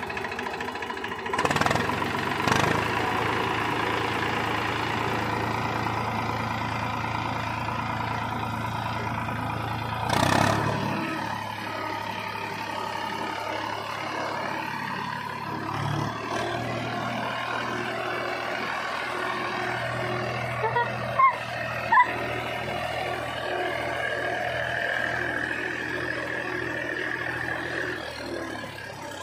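Diesel farm tractor engine running steadily as the tractor drives over a field, with a few brief louder surges and two sharp clicks past the midpoint.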